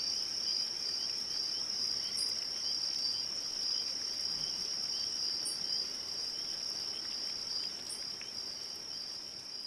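Night chorus of crickets chirping steadily, with a short higher chirp recurring every two to three seconds. It grows slightly quieter near the end.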